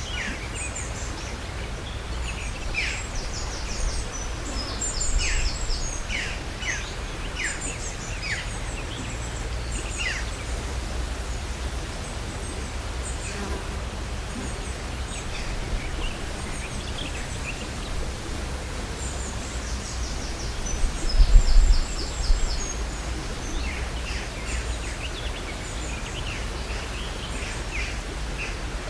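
Outdoor ambience: small birds singing in short, quick chirping phrases over a steady low wind rumble. The birds sing through the first third and again near the end, and there is a brief louder low rumble about two-thirds of the way in.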